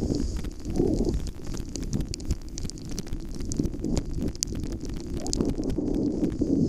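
Wind buffeting a moving camera's microphone in a low, rough rumble, over the steady scrape and crackle of gear sliding fast on packed snow.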